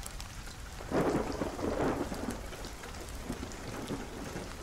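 Steady rain falling, with a rumble of thunder that swells about a second in and slowly fades.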